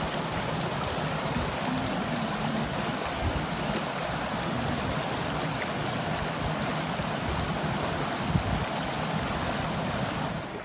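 Shallow stream running over stones and shingle where it spreads onto a pebble beach: a steady rush of water.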